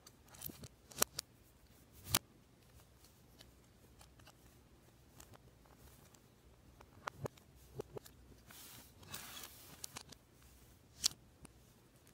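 Plastic Lego Technic parts clicking and snapping as pins and beams are pressed together by hand: a few scattered sharp clicks, with a short stretch of rustling of plastic pieces about eight seconds in.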